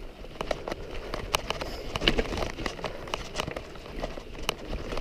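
Footsteps crunching and scuffing on a dry, stony dirt trail, an irregular run of sharp crunches several times a second.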